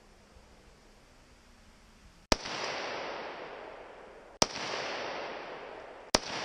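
Three gunshots from a shoulder-fired long gun, about two seconds apart, the first a little over two seconds in. Each shot is followed by a long echo off the surrounding wooded hills that fades over a second or two.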